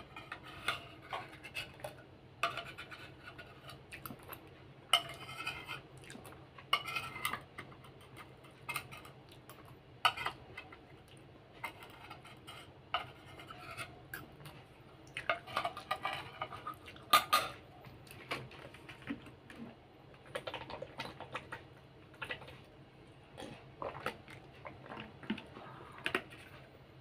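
Metal spoon scraping and clinking against a plate while the last of a meal is scooped up: many short, irregular scrapes and clicks, some with a brief ring.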